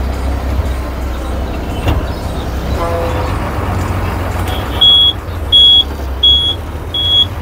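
Low, steady rumble of a city bus's engine, heard from inside the moving bus. About five seconds in, a high electronic beeper starts, giving four short, loud beeps, evenly spaced at about one and a half a second.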